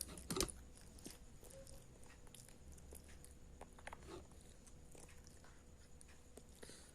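Small child chewing and eating, with quiet mouth clicks and a couple of louder clicks in the first half-second.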